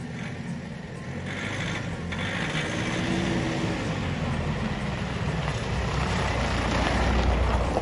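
A vehicle engine running at low revs, a steady low rumble that grows louder near the end.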